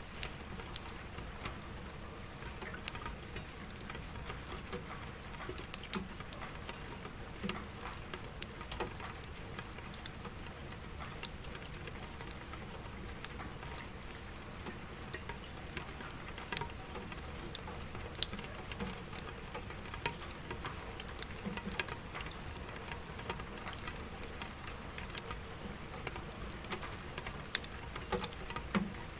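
Steady rain pattering, with many separate drops ticking and tapping on a surface.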